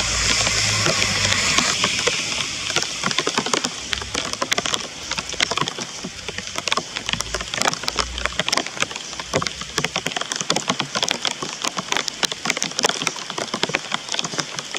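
Rain falling, with drops striking a nearby surface as many irregular sharp ticks. A broad hiss and low rumble over the first two seconds fade away.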